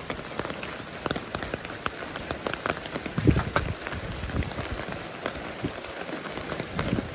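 Heavy rain falling, with many close, sharp drops tapping on an umbrella held overhead. A dull low thump comes about three seconds in.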